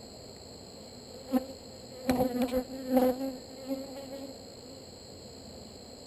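Honeybees buzzing close past the microphone in several short passes, one about a second in and a run of them from about two to four seconds in, each a steady-pitched drone that swells and fades.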